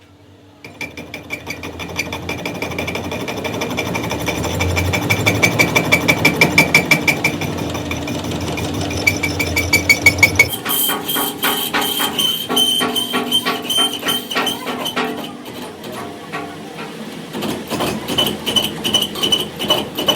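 Rapid repeated metal-on-metal knocking from workshop tools on heavy equipment parts, with a machine whine over it. About ten seconds in the rhythm changes to sparser, harder strikes.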